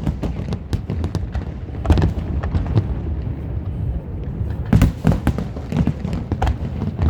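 Fireworks going off: irregular booms and sharp pops, with a cluster of reports about two seconds in and a louder cluster near five seconds, over a steady low rumble.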